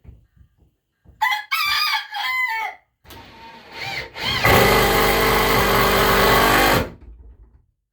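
A rooster crows, a cock-a-doodle-doo of four or five syllables, then about three seconds later a power drill runs steadily for about two and a half seconds, the loudest sound here, as a board is screwed into place.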